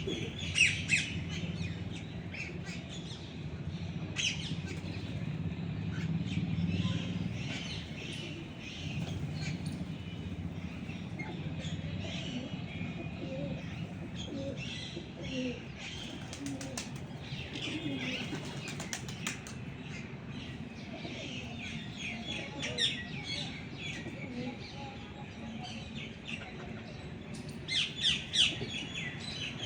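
Mixed flock of feeding birds: wings flapping repeatedly among many short, high chirps.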